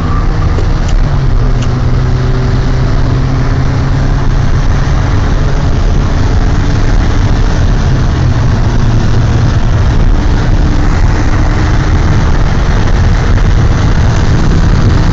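Volkswagen Golf GTI driven fast, heard from inside the cabin: its engine running under load over loud, steady road and wind noise, the engine note shifting in pitch now and then.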